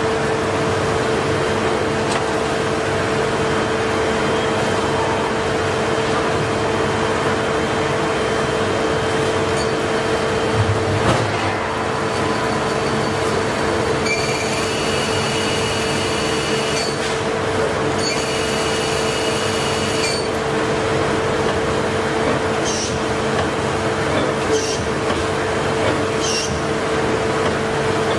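A 2000 Mazak Multiplex twin-spindle CNC lathe running with its chuck spinning: a steady machine hum with one low held tone. There is a thud about eleven seconds in, then two spells of high-pitched whine a few seconds long, and a few short clicks near the end.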